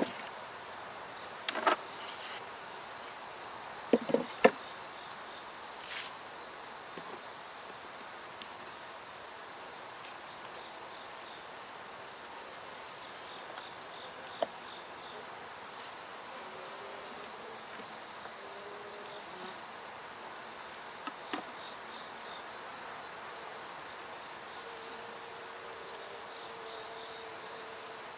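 Steady high-pitched chorus of insects droning without a break. Within the first five seconds come a few sharp knocks as a brick and the wooden hive lid and parts are lifted and set down, with a faint low hum near the end.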